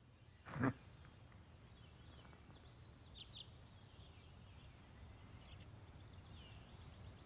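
Faint outdoor ambience with a few faint, high bird chirps, after a brief voice-like sound about half a second in.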